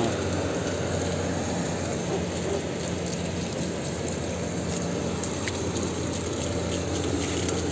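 Water splashing and running steadily as surfaces are washed down, over a steady low machine hum.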